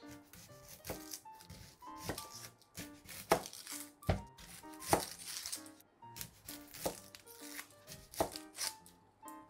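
Kitchen knife cutting onions on a cutting board: a series of sharp, irregularly spaced knocks as the blade hits the board, over background music.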